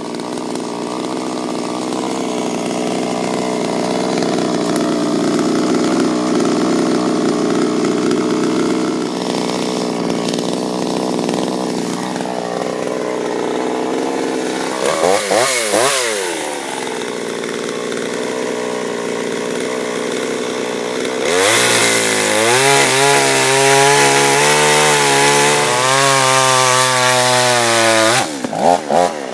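Chinese clone two-stroke chainsaw running and cutting through a dry maple log. About halfway the engine revs up and drops back quickly. In the last third it runs louder and harsher before the revs fall away near the end.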